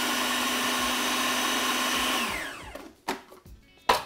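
Food processor motor running steadily as it blends hummus, then switched off about two seconds in and winding down with a falling whine. Two sharp knocks follow near the end.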